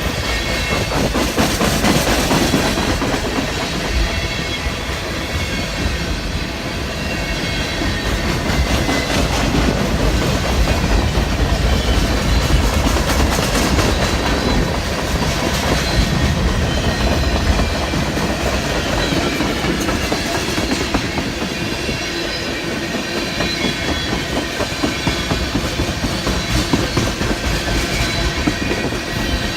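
Long freight train's cars rolling steadily past: a continuous clatter of steel wheels on the rail, with faint high ringing tones above it.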